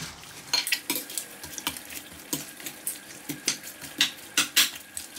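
A spatula stirring and tossing raw lamb chunks with sliced onion and herbs in a bowl: irregular clicks and knocks of the spatula against the bowl over the rustle of the mixture.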